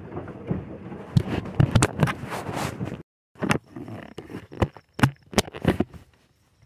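Handling noise from a phone held close to the microphone: rubbing and scraping for about three seconds, then a series of sharp knocks and clicks.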